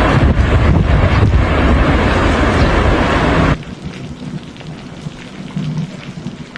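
Loud, steady rush of tornado-force wind buffeting the microphone, which cuts off abruptly about three and a half seconds in, leaving quieter steady rain.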